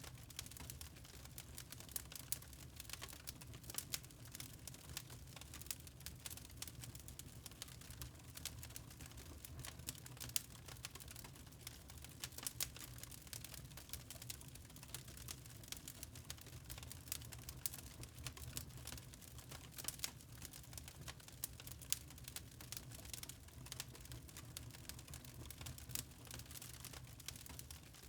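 Wood fire crackling in a fireplace: many small irregular pops and snaps over a low, steady rumble.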